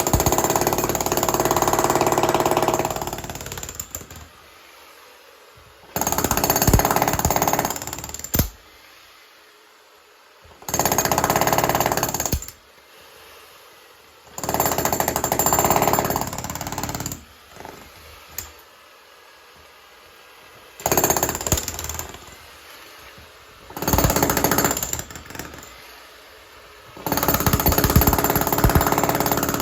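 Jackhammer breaking up concrete in about seven bursts of two to four seconds each, with short pauses between them.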